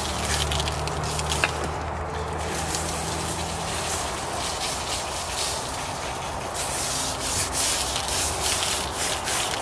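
Gloved hands rubbing dry barbecue rub into the raw skin of a whole pig: a steady brushing, rubbing noise that grows a little brighter about two thirds of the way in.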